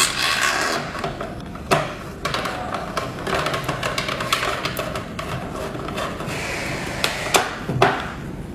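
Screws being fastened into the back panel of an electronic hotel door lock: steady scraping and clicking of the screwdriver and metal lock parts, with a sharp knock about two seconds in and two more near the end.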